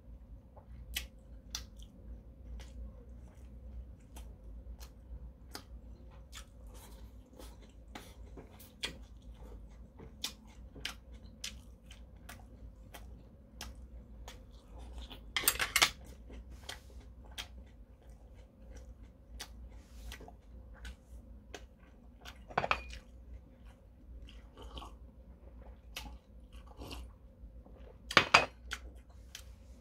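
A person chewing eel with steady small mouth clicks, heard close up. Three louder clatters of metal chopsticks against a porcelain dish come about halfway through, at about two-thirds, and near the end.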